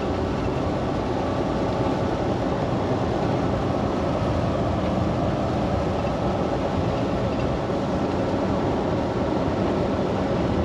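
Steady in-cab drone of a Volvo semi-truck driving on a wet highway: engine running with tyre noise off the wet road, even and unbroken.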